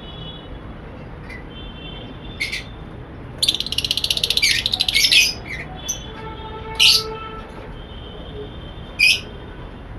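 A room full of caged lovebirds and budgerigars calling: faint steady high chirping throughout, three short, sharp, loud calls, and a rapid chattering run a little past the three-second mark.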